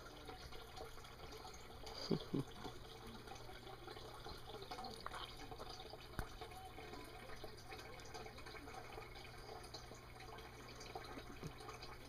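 Faint steady trickle of water in a turtle tank over a low steady hum, with two soft knocks about two seconds in and a sharp click about halfway.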